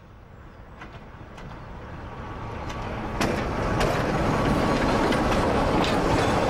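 Class 25 diesel locomotive with its Sulzer six-cylinder engine approaching and passing close by, growing steadily louder over the first three seconds and then running loud and steady. Sharp clicks of its wheels crossing rail joints come through as it passes.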